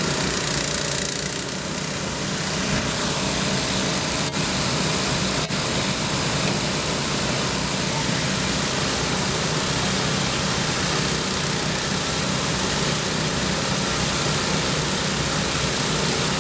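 Several portable dewatering pumps running steadily together, a constant engine drone as they pump water out of a raised sunken fishing boat's hull.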